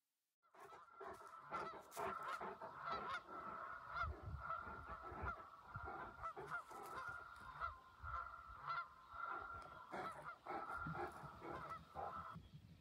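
Canada geese honking over and over, the calls starting about half a second in and coming thick and fast.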